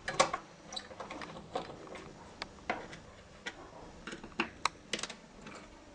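Scattered light clicks and taps of a screwdriver and screws as screws are worked out of a Yamaha Clavinova digital piano's keyboard frame, at irregular intervals.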